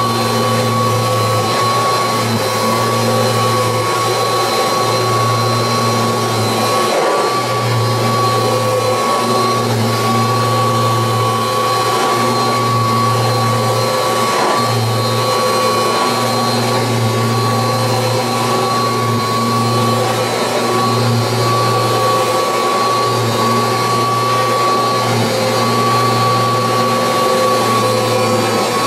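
Kirby Heritage II upright vacuum cleaner running while vacuuming: a loud, steady motor whine with a high tone held throughout, and a low hum that swells and drops every second or two.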